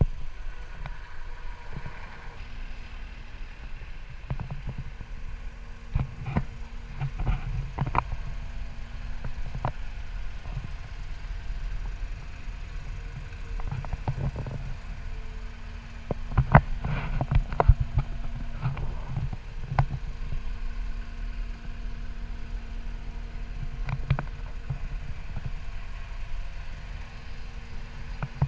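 Caterpillar 262D skid steer loader's diesel engine idling, a low rumble with a steady hum, broken by scattered knocks and clatters, with two busier clusters of them.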